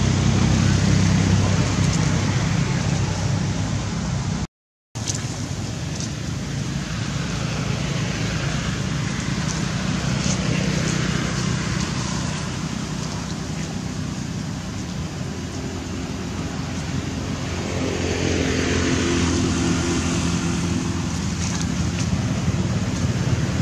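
Background road traffic: a steady engine hum with vehicles passing by twice, around the middle and again near the end. The sound cuts out for a moment about four and a half seconds in.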